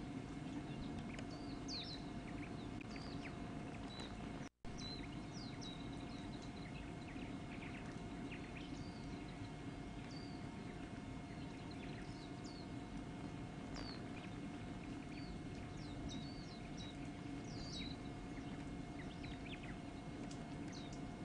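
Birds chirping sporadically, short high calls, some sweeping downward, over a steady low hum. The sound cuts out completely for an instant about four and a half seconds in.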